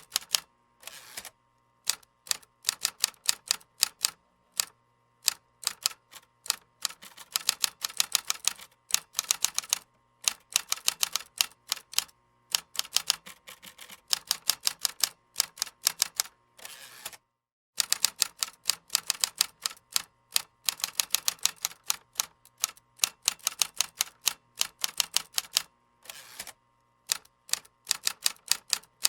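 Computer keyboard being typed on: rapid clicking keystrokes in bursts with short pauses between them, and a brief dead silence about 17 seconds in.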